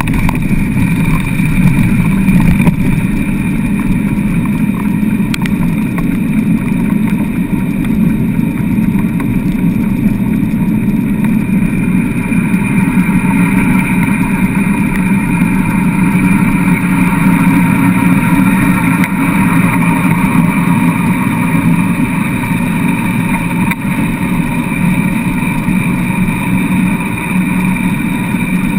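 Steady rolling noise of a dry-land dog rig's wheels running over hard beach sand as a four-dog team pulls it along, a continuous low rumble with a faint steady hum above it.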